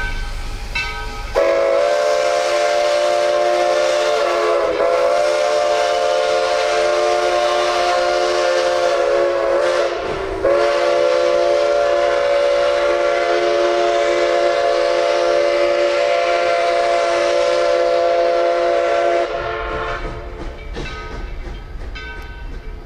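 Locomotive sounding a loud multi-note chord signal in two long blasts. The first lasts about nine seconds; after a brief break near the middle, the second is held for about nine seconds more. Faint train clatter is heard before and after the blasts.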